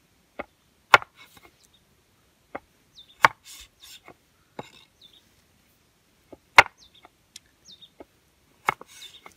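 Large broad-bladed knife slicing pickled cucumbers on a wooden cutting board: about seven sharp knocks of the blade striking the board, spaced irregularly, three of them much louder than the rest.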